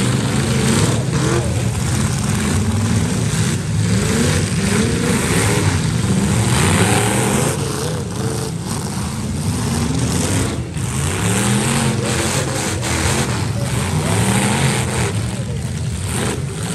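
Several demolition derby cars' engines revving hard and falling back, overlapping, with a few sharp bangs of cars hitting each other.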